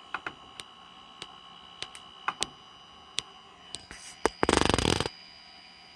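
Small 24V cooling fan running at full speed with a faint steady whine and scattered light clicks. About four and a half seconds in, a loud buzzing rattle lasts under a second.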